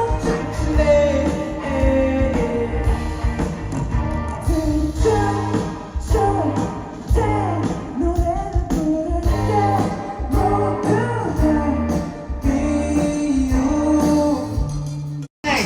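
Pop-rock song with a singer over a strong bass line and a steady beat, cutting off abruptly near the end.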